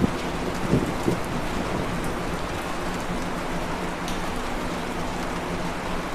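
Box fan running steadily: an even rush of air with a faint low motor hum, and a couple of soft low bumps about a second in.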